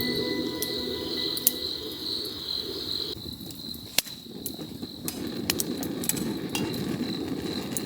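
Insects chirring steadily in one high even band, growing fainter about three seconds in, with scattered sharp clicks over a low rushing background.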